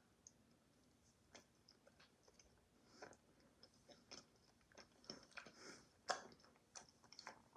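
Faint, irregular sounds of someone eating ice cream with a spoon: small mouth smacks and spoon clicks a few at a time, with short gaps between them.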